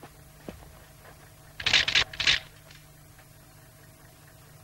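Three short, harsh clattering noises in quick succession about a second and a half in, over a low steady hum.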